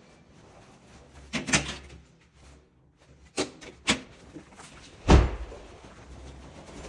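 A few knocks and bangs, like doors or cupboards shutting: two close together about a second and a half in, two more between three and four seconds in, and the loudest, a heavy thump, about five seconds in.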